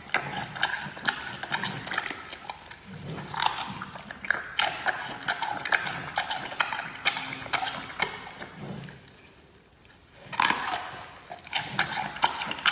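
Giant panda biting and chewing a bamboo shoot: irregular crisp crunches and clicks, with a short lull about nine seconds in before louder crunching resumes.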